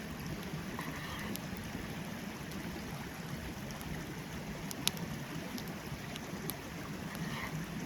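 Forest stream running steadily, with a few sharp pops from a campfire crackling, the loudest about five seconds in.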